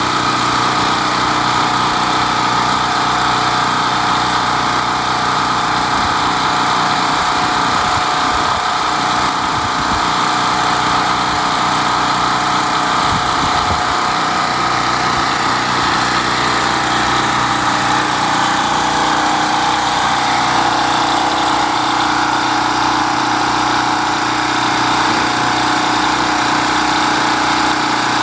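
Portable generator's small single-cylinder engine running steadily at constant speed.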